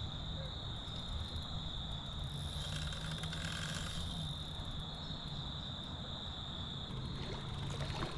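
A steady, high-pitched chorus of insects trilling without a break, over a low steady hum.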